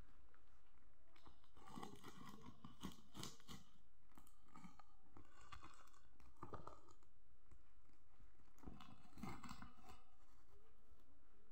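Clear packing tape being pulled off its roll and smoothed down over paper by hand: faint crinkling, rubbing and tearing noises in three irregular spells, over a low steady hum.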